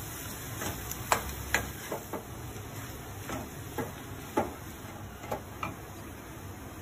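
Metal spatula scraping and knocking against a black pan while stirring and turning mashed-potato masala: irregular sharp clicks and scrapes, roughly one or two a second, loudest in the first half.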